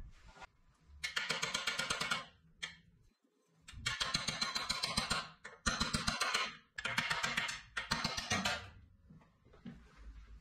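Metal transport pin being worked out from under the bandsaw table by hand: four bursts of rapid, dense clicking and scraping, each a second or so long, and a fainter one near the end.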